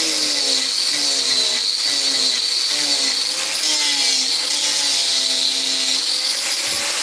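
Hand-held angle grinder running with a steady high whine as its disc shapes a carved wooden piece, with a lower tone underneath that keeps sliding down in pitch.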